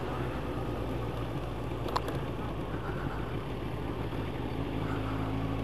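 Yamaha YZF 1000cc sport bike's inline-four engine running steadily at low revs under way, with a faint tick about two seconds in. The engine note strengthens and rises a little near the end.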